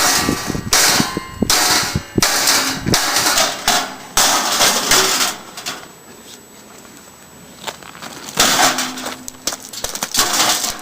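Clanging, knocking and scraping of a computer tower's metal case being worked apart, in repeated bursts, with a quieter pause of about two seconds past the middle.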